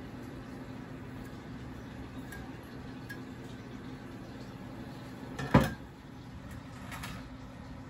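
A single sharp knock against a stainless steel pan as chopped cilantro is scraped in from a cutting board, with a fainter knock a second and a half later, over a steady low hum.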